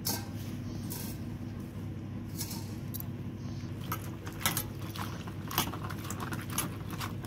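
Chopped leafy greens being washed by hand in a steel bowl of water: splashing and swishing, with bangles and the bowl clinking in scattered light clicks that come more often in the second half, over a steady low hum.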